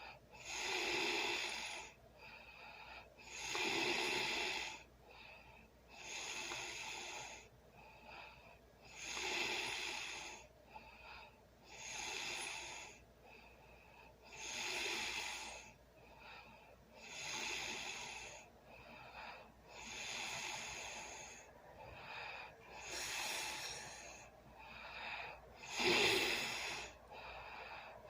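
A sleeping person snoring: loud, breathy breaths that come about every two and a half to three seconds, some with a low rattling tone. The loudest breath comes near the end.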